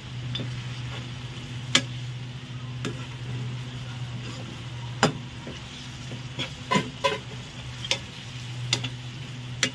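Slotted steel spatula stirring keema in a frying pan. It knocks and scrapes against the pan with several sharp clicks, over a steady sizzle of the minced meat cooking on low heat.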